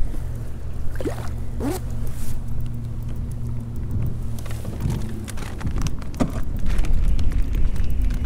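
Steady low drone of a motorboat engine, turning into a rougher rumble about halfway through, with a few light clicks and knocks close by.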